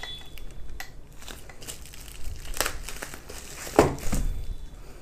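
Bubble wrap being cut open and pulled off a boxed phone, crinkling and crackling, with a couple of sharper knocks from handling, the loudest near four seconds in.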